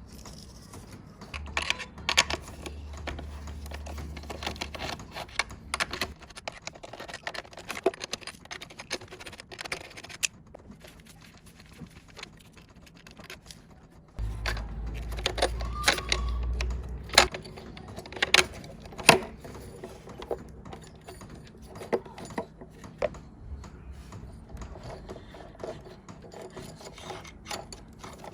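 Metal parts and tools clinking, tapping and scraping as an electric water heater is taken apart, with scattered sharp clicks throughout. A low steady hum comes in twice, once near the start for a few seconds and again, louder, about halfway through.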